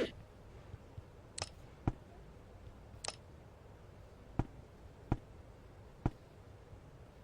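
About six sharp, separate clicks and light knocks at uneven intervals, two of them with a brief hiss.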